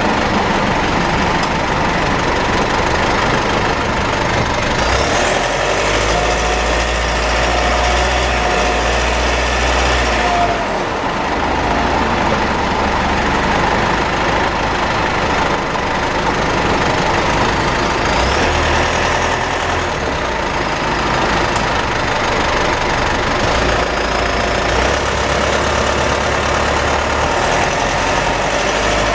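Driving noise inside the cabin of a 4N15 diesel Mitsubishi, with a thin high whine on top. The whine comes and goes, clearest for a few seconds about a quarter of the way in and again near the end. The engine drone underneath shifts in pitch now and then. The owner believes the drivetrain is damaged, having found the rear differential overfilled, the front differential oil burnt black and the automatic transmission fluid about a litre short.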